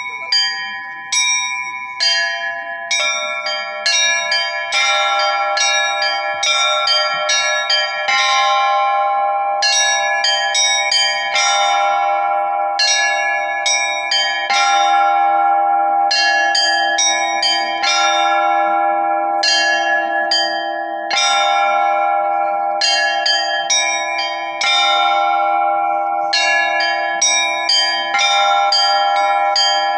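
A set of Russian church bells rung in a rhythmic peal (zvon): quick repeated strikes on the small high bells over a steady ringing pattern. A deeper bell joins about five seconds in and keeps sounding under the rest.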